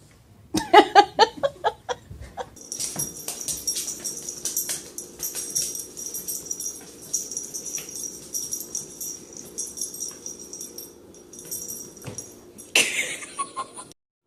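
A dog making high-pitched whining cries in a long run with short breaks. It starts with a quick burst of rapid pitched sounds and ends with one sharper, louder cry near the end.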